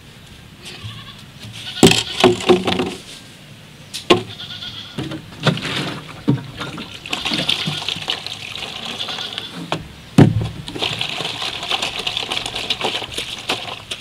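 Plastic jerrycan and basin knocking and clattering as they are set down, then water poured from the jerrycan into a plastic basin, splashing steadily through most of the second half.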